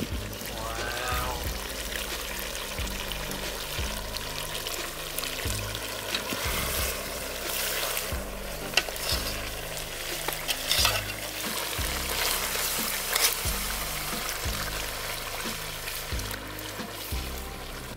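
Duck curry bubbling and sizzling in a large metal pot while a metal ladle stirs it, clinking against the pot a few times. Background music with a steady low bass line runs underneath.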